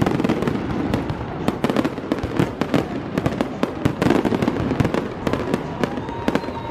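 Fireworks display: many sharp bangs and pops going off in quick, irregular succession, often overlapping.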